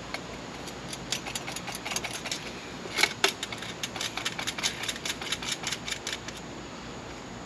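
A quick run of light clicks and taps, about four a second, from hands working the wires and plastic connectors mounted on a sheet-metal trough cover, with one louder click about three seconds in.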